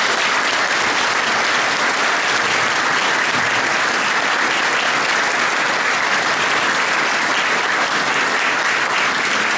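Audience applause: many people clapping steadily.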